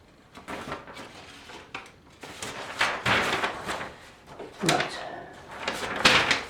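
Handling noises: a string of separate rustles and light knocks as paper instructions and packaging are leafed through and moved about, the loudest just after six seconds in.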